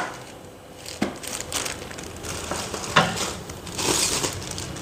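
Clear plastic wrapping crinkling as a teak table panel is handled and pulled from its bag, with a few sharp knocks of wood, about a second and three seconds in.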